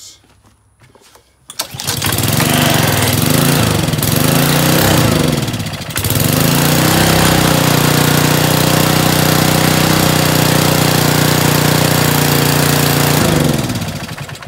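Honda GCV190 pressure washer engine pull-started on choke, catching at once. Its speed wavers for the first few seconds and dips about six seconds in, then it runs steadily until it is switched off about a second before the end. It starts straight away on a freshly cleaned carburettor after sitting unused for months.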